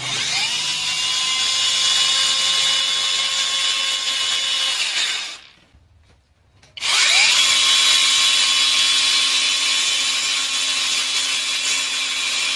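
Cordless battery brush cutter driving a chainsaw attachment, run with no load in two bursts of about five and six seconds. Each burst spins up with a rising whine, holds a steady high whine as the chain runs round the bar, then winds down. This is a test run just after the chain tension has been set.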